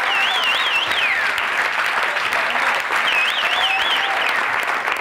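Audience applauding and cheering, with a warbling whistle near the start and again about three seconds in.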